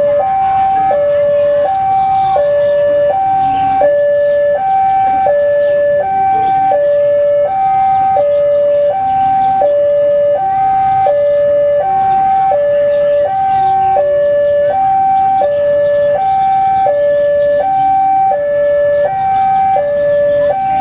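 Railway level-crossing warning alarm, loud and unbroken, alternating two electronic tones high-low about once a second: the signal that a train is approaching the crossing.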